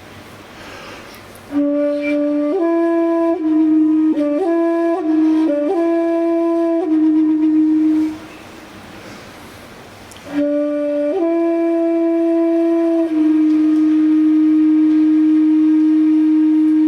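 A flute-like wind instrument plays a slow melody of clear, separate notes in two phrases with a pause of about two seconds between them. The second phrase settles on one long held note.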